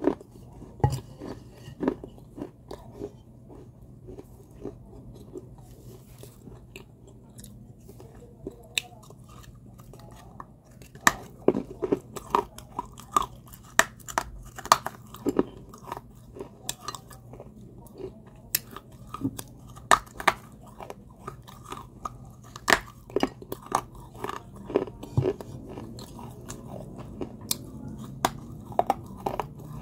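A person biting and chewing pieces of a baked terracotta clay pot coated in clay paste, with sharp, crisp crunches. The crunches are sparse at first and come quickly and more loudly from about eleven seconds in.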